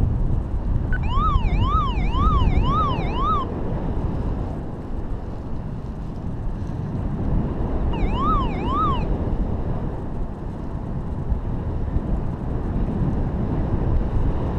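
Wind rushing over the camera microphone in paraglider flight. Twice, a clean siren-like electronic warble sweeps up and down about twice a second, first for a couple of seconds, then briefly about eight seconds in.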